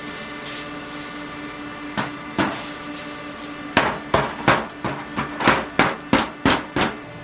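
Knife chopping on a wooden cutting board: two single chops, then a quick run of about ten chops, roughly three a second, over a steady kitchen hum.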